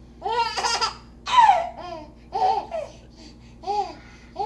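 Baby laughing in several short bursts of high-pitched giggles with brief pauses between them.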